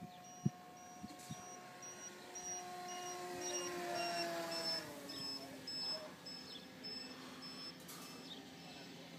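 Electric motor and propeller of an FMS Cessna 182 radio-controlled model plane whining as it flies past, getting louder to about four seconds in, then dropping in pitch and fading as it goes away.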